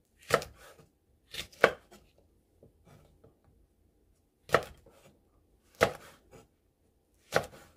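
Kitchen knife slicing red chili peppers on the diagonal against a cutting board: six separate knocks of the blade on the board at uneven intervals, two of them in quick succession about a second and a half in.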